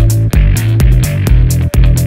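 Electronic background music with a steady drum beat and a bass line.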